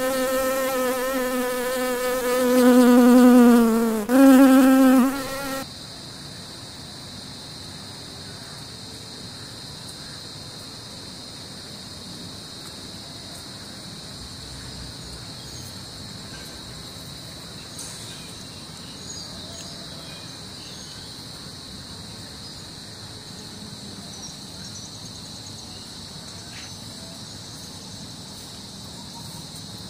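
A cartoon bee's buzzing sound effect, a loud wavering drone that breaks off briefly about four seconds in and stops after about five and a half seconds. After it comes a steady, quieter, high-pitched insect chorus.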